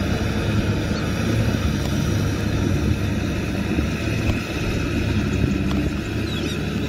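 Kubota M6040SU tractor's diesel engine running steadily while working through wet mud.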